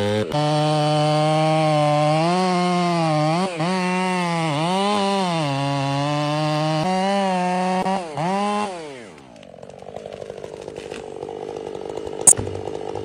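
Chainsaw cutting through a tree trunk at high revs. The engine pitch dips and recovers again and again as the chain loads in the wood. About nine seconds in the throttle is released and the revs fall away to a fainter steady idle, with a single sharp click near the end.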